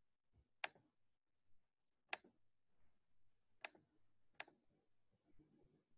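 Four faint, sharp clicks, unevenly spaced, over near-silent room tone: clicks from working a computer.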